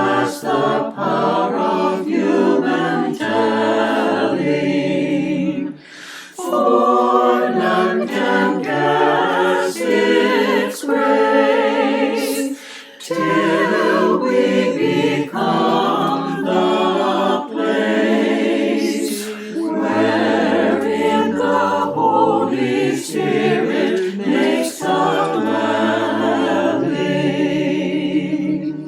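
Choir singing unaccompanied, a slow piece in long phrases with short breaks between them, stopping abruptly near the end.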